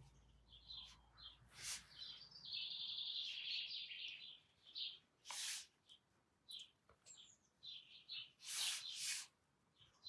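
Soft brush dabs and strokes of watercolour on paper, with a bird chirping faintly in the background.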